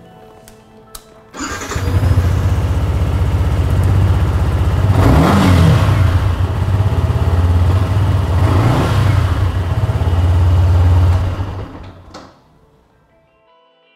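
Yamaha XSR 125's single-cylinder four-stroke engine starting about a second in, idling, blipped twice on the throttle, then switched off near the end.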